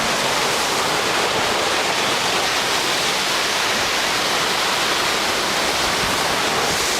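Heavy hurricane surf and wind, a steady, loud rushing noise with no single wave breaks standing out.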